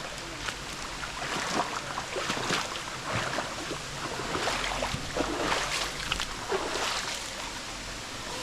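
Irregular splashing and sloshing of feet wading and clambering over rocks in a shallow stream, over a steady background of running water.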